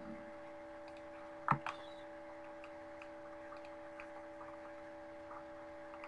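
Two sharp computer-mouse button clicks in quick succession about a second and a half in, over a steady electrical hum, with a few faint ticks scattered around them.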